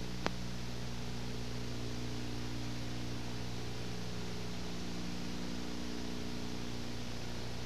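Steady hiss with a low electrical hum underneath: the recording's own background noise. There is a single sharp click about a quarter second in.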